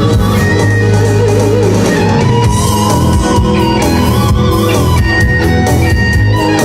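Live rock instrumental: an amplified electric guitar plays a lead line of long held notes with a wavering vibrato, over a steady bass and drum beat.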